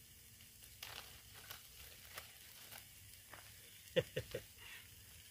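Faint rustling and crinkling of plastic as a small bottle is handled in the hands, with three quick short squeaks that fall in pitch about four seconds in.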